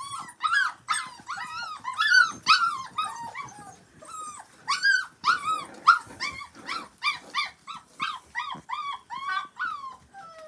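Miniature poodle puppies, six weeks old, whining and yipping in a rapid string of short, high, rising-and-falling cries, with a brief lull about four seconds in. They are crying to be let in.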